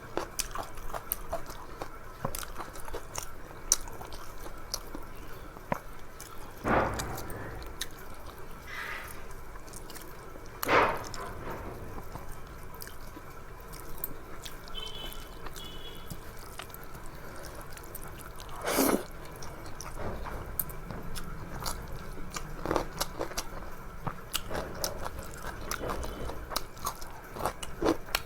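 Close-up sounds of a person eating: chewing and lip-smacking with many small wet clicks, and a few louder smacks about a third and two-thirds of the way through.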